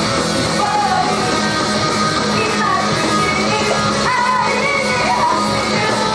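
Three women singing in unison into microphones over loud, continuous backing music through a club PA, in a live idol-group performance.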